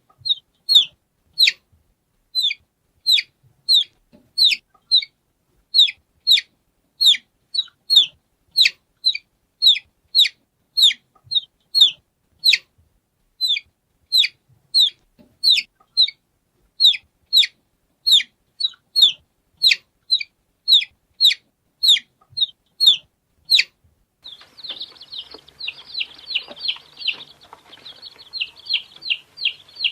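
Baby chicks peeping: short, high, downward-sliding peeps, about two or three a second, cleanly spaced. About four-fifths of the way through, the sound changes to denser, overlapping peeps over a background hiss.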